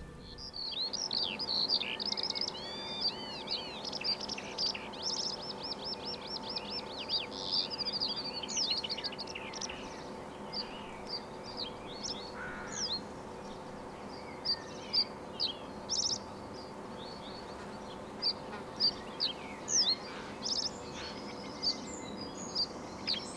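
Small birds singing: rapid high trills and chirps, dense for the first nine seconds or so, then scattered single chirps. A steady low hum runs beneath.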